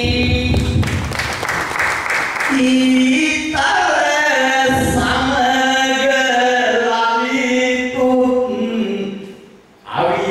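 A man singing Sinhala kavi (traditional folk verse) unaccompanied through a microphone and PA, holding long sustained notes. A burst of rustling noise with a low rumble sits under the voice in the first couple of seconds, and the sound drops away briefly just before the end.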